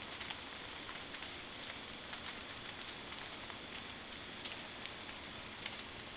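Giant bonfire of felled trees and brush burning: a steady hiss with scattered sharp crackles, about one every second.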